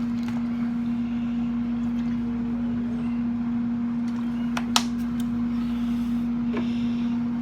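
Kalorik 10-quart air fryer running: a steady, even fan hum. A single sharp click comes about five seconds in.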